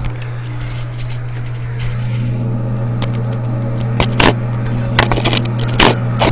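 Clicks and knocks from toilet tank parts being handled and connected, several in quick succession in the second half, over a steady low hum.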